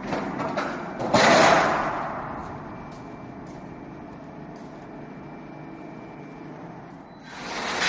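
Corrugated-sheet roll-forming machine at work, making a rushing, hissing noise rather than a pitched hum. The noise surges loudly about a second in and dies away, runs on more quietly, then swells again near the end.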